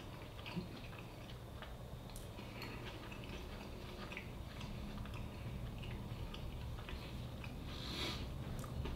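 A man chewing a mouthful of taco: faint, scattered soft mouth clicks over a low steady room hum, with a brief hiss near the end.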